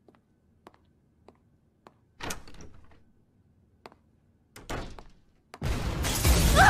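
Animated-fight sound effects: faint ticks about every half second, a heavy thud about two seconds in and another near five seconds, then a sudden loud crash with a deep rumble near the end.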